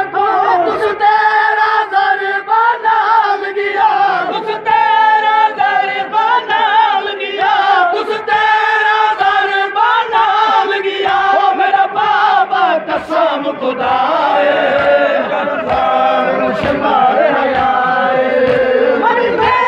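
A crowd of men chanting a noha, a Shia mourning lament, together in unison, with sharp beats cutting through the chant.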